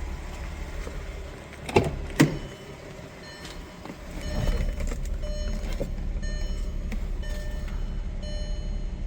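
Volkswagen Mk4 GTI idling with a steady low exhaust rumble through its newly replaced centre resonator, running a little quieter now that the rusty, leaking one is gone. Two sharp clicks come about two seconds in, then a short electronic beep repeats about once a second from around the middle.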